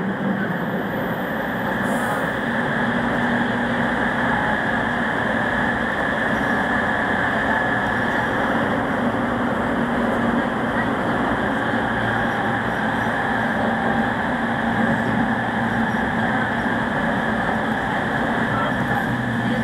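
JR East 209 series 500 commuter train, heard from on board its motor car with GTO-VVVF traction equipment, running at a steady speed. An even rumble of wheels on rail and running gear, with faint steady tones and no rising or falling motor whine.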